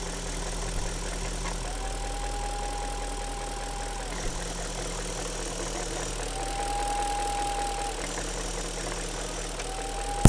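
BMW M62TU 4.4-litre V8 idling with a high whistle that comes and goes, sounding for about two seconds at a time three times, sliding up into its pitch each time it starts. The whistle seems to come from near the intake manifold and is quieter when the back cap of the diaphragm is covered, which points to a vacuum or crankcase-ventilation leak.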